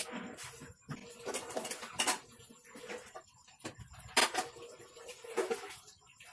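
Handling noises from small electronics work: clicks, taps and rustles as a wire cutter and thin wire are handled on a wooden tabletop. The sharpest clicks come about two seconds in and just after four seconds.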